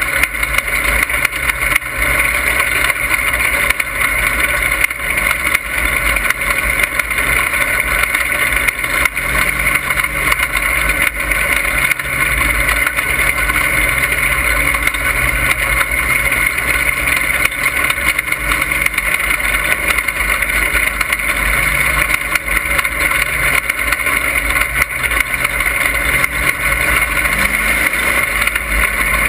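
Dirt-track race car engine running hard at racing speed, heard from inside the cockpit as a loud, steady din without a break.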